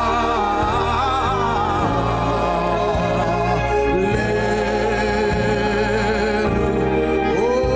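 Worship music: a singing voice with vibrato slides and glides over held chords and a steady bass.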